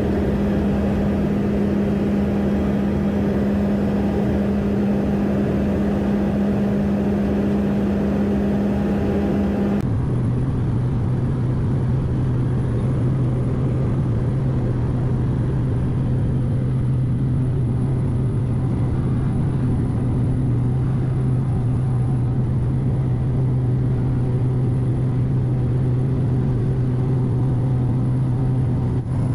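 Engine and propeller drone of a small high-wing propeller plane heard from inside the cabin while climbing after takeoff. It is a loud, steady hum that drops abruptly to a lower pitch about ten seconds in and then holds steady.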